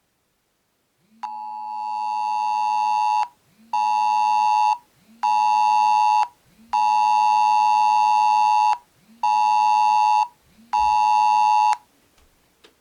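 Smartphone Emergency Mobile Alert attention tone: a loud two-tone beep near 1 kHz sounding in a pattern of one long and two short blasts, played twice, with the first long blast swelling in volume. The phone's vibration buzzes under each blast.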